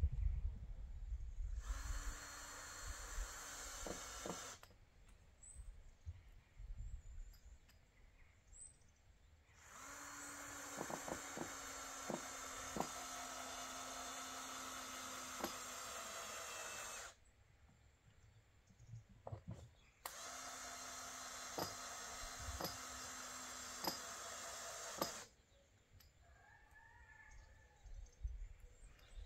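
Power drill running in three steady spells of a few seconds each, the longest about seven seconds, with light clicks during the runs, as boards are fixed along the bottom of a chicken run.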